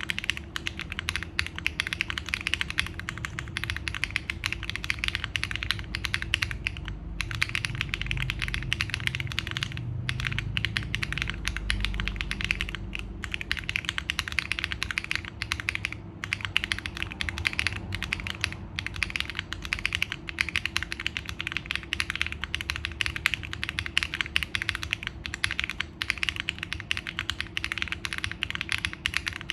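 Fast, continuous typing on a QK65 V2 mechanical keyboard, gasket-mounted with an aluminium plate, FBB F3 switches and JTK FC Classic keycaps. The keystrokes come thick and quick, broken by a few brief pauses.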